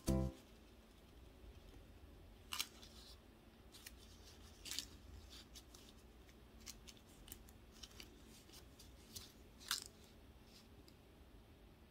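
Faint, scattered crinkles and ticks of folded origami paper being handled, as a strip of clear adhesive tape is pressed onto a paper heart.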